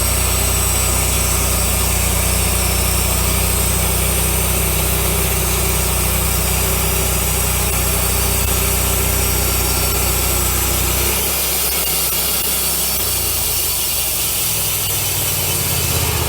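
Wood-Mizer LX150 bandsaw mill running, its engine driving the band blade through a large pine cant, with a steady engine hum under the hiss of the cut. About eleven seconds in, the low engine hum drops away and the sound changes.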